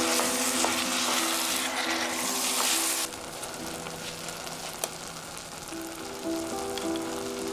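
Diced tomatoes and peas sizzling in olive oil in a stainless steel pot as they are stirred with a wooden spoon, with a few light clicks of the spoon. The sizzle drops to a much softer hiss about three seconds in.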